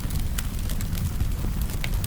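Firewood burning with a steady low rumble of flame and scattered sharp crackles and pops, a few each second, one stronger pop near the end.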